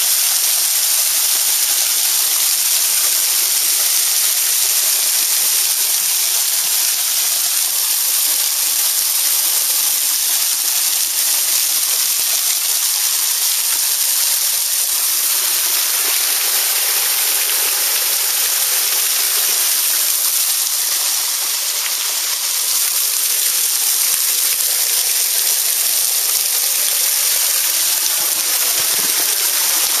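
Small waterfall spilling down a rock face: a steady, hissing rush of falling water.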